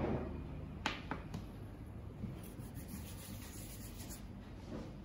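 Faint rubbing of hands rolling modelling dough, with a sharp click about a second in.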